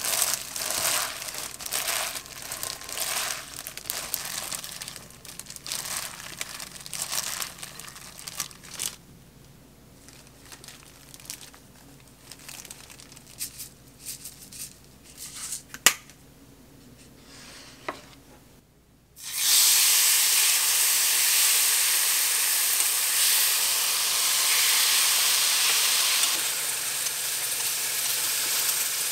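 A plastic glove crinkles as a hand tosses lettuce and chives in a glass bowl, followed by quieter rustles and a sharp click. About two-thirds of the way through, a steady sizzle of sliced meat frying in a pan starts and is the loudest sound.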